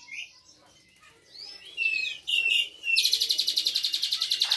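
Jalak suren (pied starling) singing: a few chirps and gliding whistles, then about three seconds in a loud, rapid trill of quickly repeated notes. This is the 'nembak' burst of mimicked cililin song.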